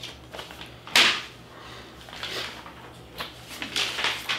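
Sheets of paper being handled and rustled on a wooden table, with a sharp knock about a second in and more rustling near the end.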